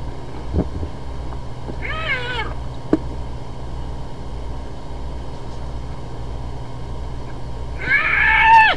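Spotted hyenas squealing: a short, wavering squeal that dips in pitch about two seconds in, then a longer, louder squeal near the end, over a steady low hum.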